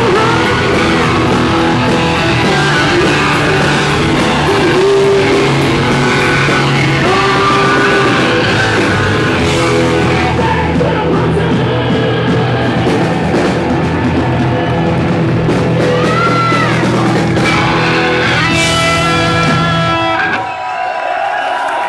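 Live hard rock band playing loud: distorted electric guitars, bass and drums under a man's shouted singing. About 20 seconds in the band stops and the heavy low end drops away.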